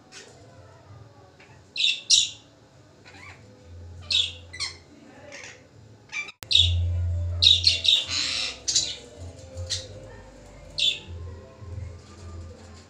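Rose-ringed parakeet giving short, harsh calls in separate bursts, with a quick run of them about seven to nine seconds in.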